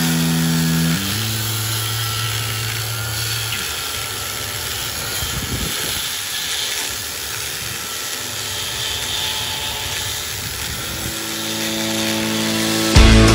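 Handheld angle grinder cutting into the sheet-steel roof of a narrowboat, a steady harsh grinding with a high hiss as the disc bites the metal and throws sparks.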